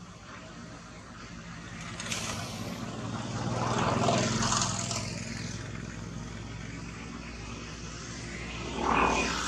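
A motor vehicle's engine passing by, a low hum that grows louder to a peak about four seconds in and then fades, with a second, shorter swell near the end.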